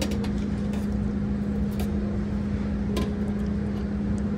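Steady low machine hum, with a few light clinks of a metal serving spoon against steel buffet trays.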